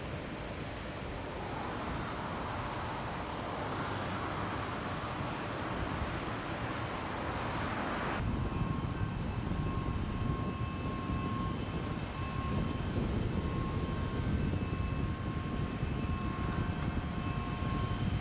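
Steady mechanical drone with a low rumble. An abrupt change about eight seconds in brings a few steady high whining tones over it.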